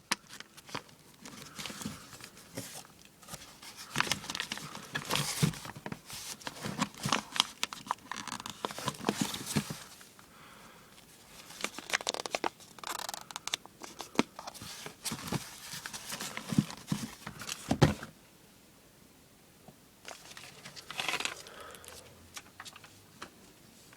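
Fireworks and their packaging being handled: crinkling and rustling with irregular knocks and clicks, in bursts with a few short pauses.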